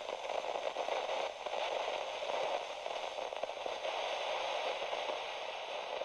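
Television static sound effect: a steady crackling hiss.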